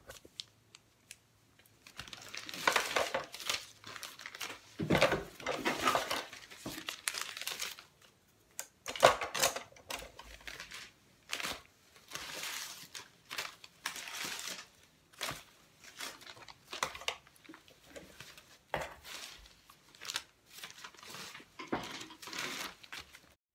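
Stiff strips of dictionary paper rustling and crinkling in irregular bursts as they are handled, set in place and pressed down into hot glue, with scattered light clicks between.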